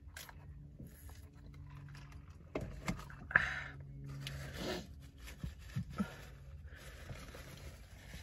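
Paper napkin rustling and crinkling as it is handled, with scattered small clicks. The loudest, sharpest crinkle comes about three and a half seconds in.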